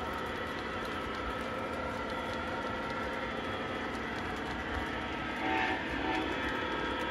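O-gauge model train running on the layout: a steady rumble of wheels and motor under faint steady tones. About five and a half seconds in comes a brief, louder pitched sound.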